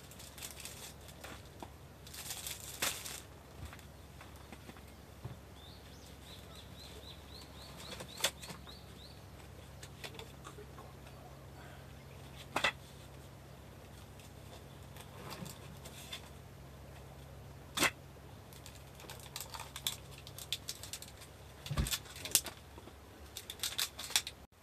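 Plastic food packaging rustling and crinkling in short bursts as bread and a packet of bacon are handled, with a few sharp knocks.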